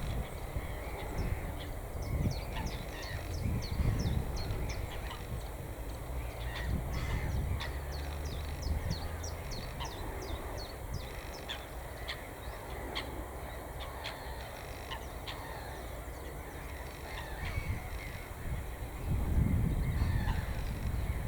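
A wetland bird chorus: many short, high chirps follow one another throughout, with calls of larger birds such as crows or geese among them. A low rumble grows near the end.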